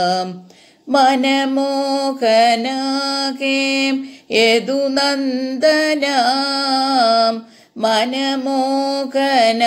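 One voice singing a slow devotional bhajan to Krishna, a chant of his names in long held, gently bending phrases, with three brief breaks between them.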